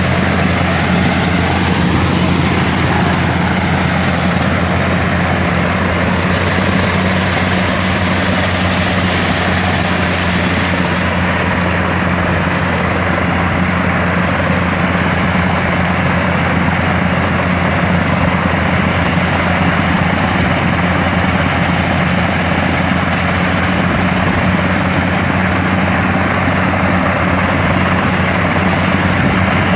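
Engine of a water-line drilling machine running steadily at constant speed, with a low, even hum.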